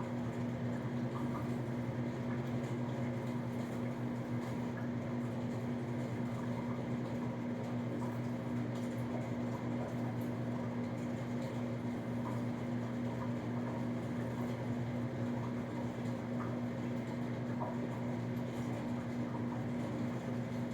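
A steady low machine hum, unchanging throughout, with a couple of faint ticks.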